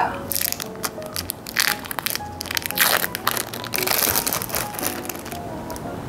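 Thin plastic film crinkling in several short bursts as individually wrapped processed cheese slices are peeled from their wrappers, over light background music.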